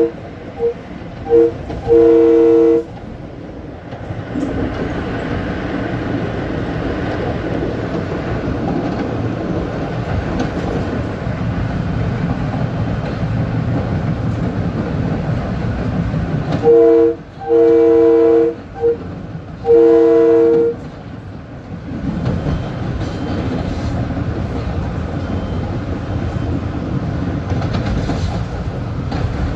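LIRR M3 electric train running on the rails, with a steady rumble and wheel clatter. Its horn sounds a mix of short and long two-note blasts in the first three seconds and again about two-thirds of the way through.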